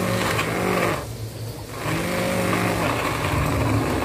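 Electric hand blender running in a saucepan of hot chutney: a steady motor hum with the blade churning the liquid. It dips briefly about a second in, then picks up again.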